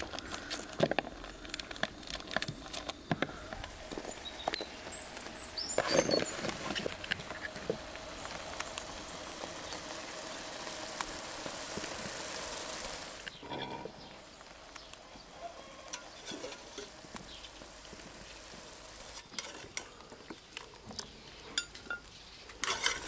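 Small knife scraping and clicking against a carrot as it is peeled, then a pot boiling with a steady hiss for several seconds that cuts off suddenly, followed by quieter scattered ticks.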